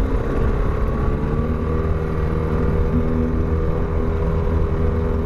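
Boat motor running as the boat moves across the lake, its pitch rising slightly over the first second or so, then holding steady.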